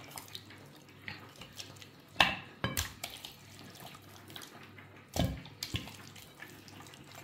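Hands rubbing and massaging spice-marinated pork ribs against each other in a glass baking dish: a wet squelching, with sharp slaps of meat twice about two seconds in and twice more about five seconds in.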